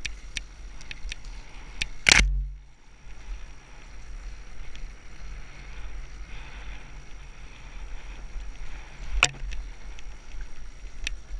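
Wind rumbling on a helmet camera's microphone while an enduro dirt bike rides a rough grassy trail, its engine faint underneath. Sharp knocks as the camera and bike jolt, the loudest about two seconds in and another about nine seconds in.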